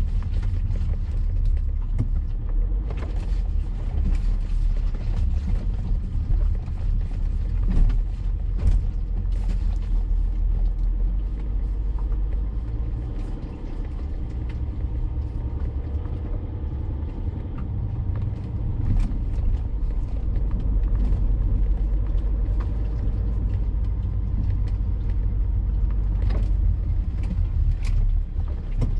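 Diesel BMW E70 X5 driving off-road over a rough trail: a steady low rumble of engine and tyres, with scattered knocks and clicks throughout.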